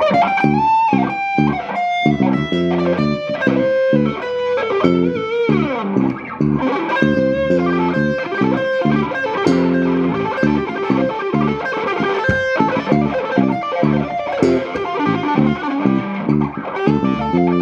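Semi-hollow electric guitar and electric bass playing together: the guitar plays single-note lines and chord stabs, with a bent note near the start, over the bass line.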